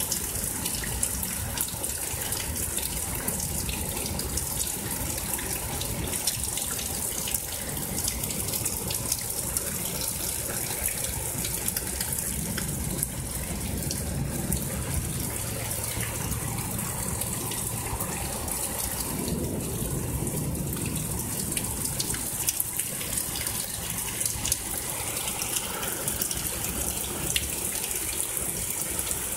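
Heavy rain pouring down in a steady hiss, with many sharp ticks of drops striking close by and water running over the flooded street. A soft low rumble rises and fades twice, around the middle and again about two-thirds of the way through.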